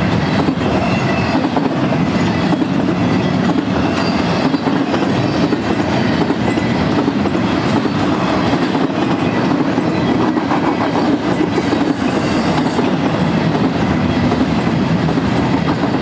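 Double-stack intermodal container train's well cars rolling past close by: a steady, loud rumble of steel wheels on rail.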